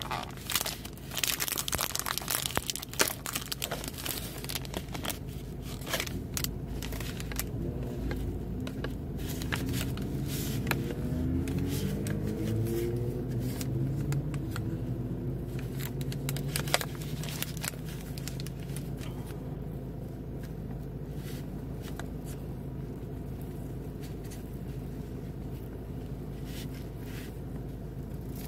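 Thin plastic film lid of a snack tray crinkling and crackling as it is peeled back and handled, busiest in the first several seconds, with scattered clicks afterwards. A low hum that slides up and down in pitch rises in the middle.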